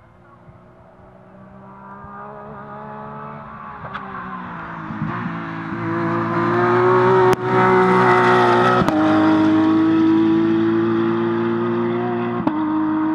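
A rally car's engine driven hard, coming closer and growing louder, with several gear changes. Two sharp cracks come as it passes at its loudest, and it eases slightly near the end as it moves away.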